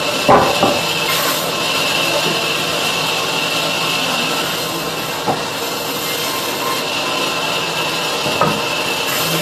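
Large sawmill band saw running steadily with a high-pitched hiss as it resaws walnut. Wooden blocks knock onto its metal table a few times: just after the start, about five seconds in, and again near eight and a half seconds.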